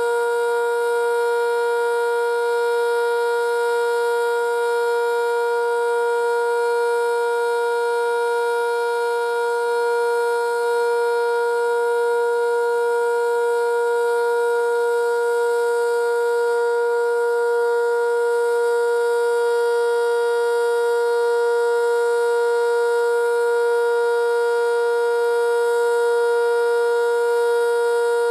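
Sentry 5V outdoor warning siren sounding the steady Alert signal during its monthly test: a loud, continuous chord-like tone that holds its pitch without rising or falling.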